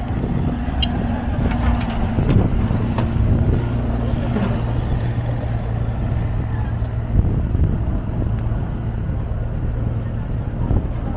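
Road traffic: a steady low engine hum from passing motor vehicles. A higher steady tone from one engine drops away about four and a half seconds in, and there are a few sharp clicks in the first few seconds.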